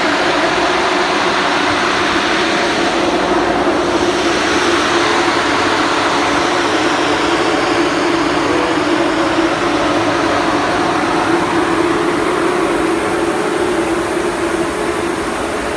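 Vertical grain dryer machinery running: a steady, loud mechanical drone with a constant hum over a wide rushing noise.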